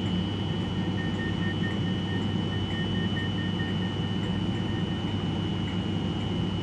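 Class 390 Pendolino electric train standing at the platform, its onboard equipment humming steadily with a thin high whine over it. A faint rapid beeping runs for a few seconds from about a second in.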